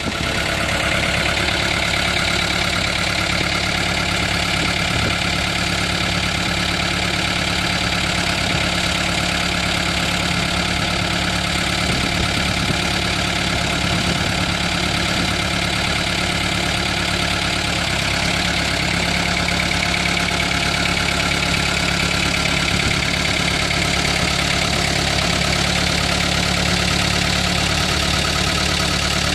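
Ford 5600 tractor's diesel engine running steadily at an even speed, with a steady high whine on top of the engine note.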